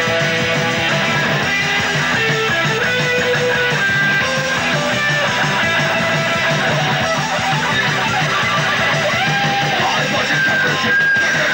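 Live punk rock band playing loud: electric guitars over bass and drums.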